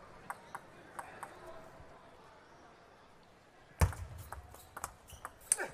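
Table tennis ball clicking a few times in a quiet hall, then a loud serve with a heavy thud about four seconds in, followed by the ball clicking off table and bats several times as a rally starts.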